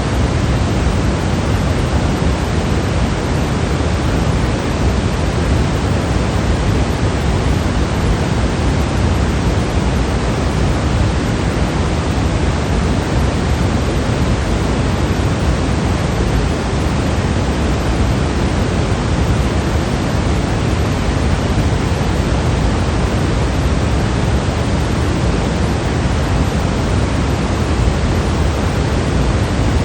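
Continuous electronic white noise: an even, unchanging hiss with more weight in the low end than the highs.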